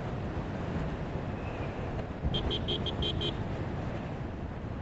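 Steady road and traffic rumble from a moving vehicle, with a horn sounded in about six quick short toots around the middle.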